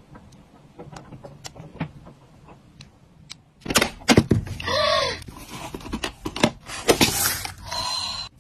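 Close-up crafting sounds of plastic phone-case parts being handled. Light clicks and taps come first; from about four seconds in there are louder spells of crinkling and scraping, with a brief squeak near the middle, and the sound cuts off sharply at the end.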